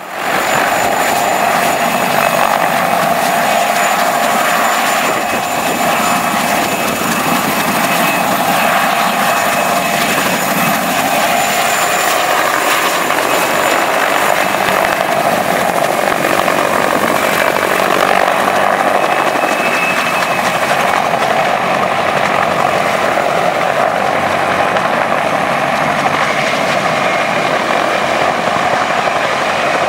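Mi-2 helicopter flying low and close, its twin turboshaft engines giving a steady high whine over the rotor noise. The high whine thins after about twenty seconds as the helicopter moves away.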